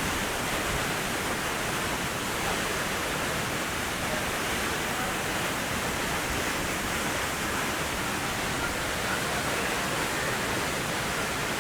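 Water of the Trümmelbach Falls rushing and splashing down the waterfall at full speed: a steady, unbroken hiss of heavy falling water.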